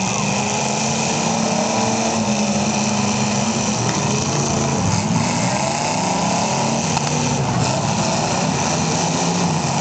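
Several demolition derby cars' engines running and revving together, their overlapping pitches rising and falling as the cars manoeuvre.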